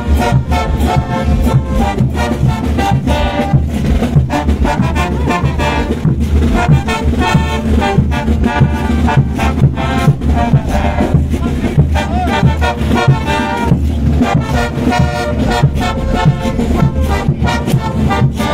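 Bolivian brass band playing live: trumpets, trombones and tubas over a steady beat of bass drum and cymbals.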